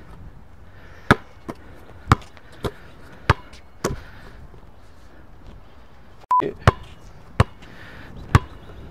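Basketball bouncing on a hard outdoor court, single sharp bounces about half a second to a second apart with a pause in the middle. A short beep about six seconds in.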